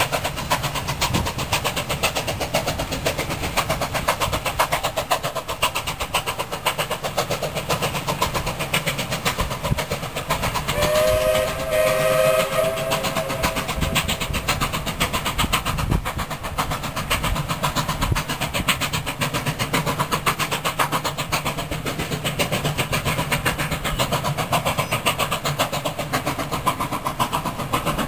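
Ex-Queensland BB18¼ class steam locomotive 1072 working its train, with a steady rapid beat throughout. About eleven seconds in, its steam whistle sounds one blast of about three seconds.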